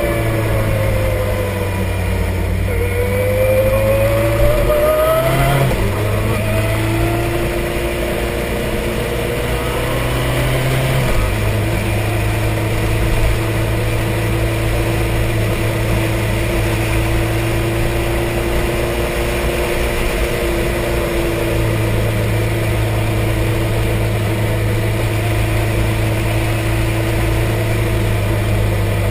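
Sport motorcycle engine running under way, heard from a camera mounted low on the bike together with road and wind noise. The engine pitch dips and then climbs over the first several seconds, then holds steady.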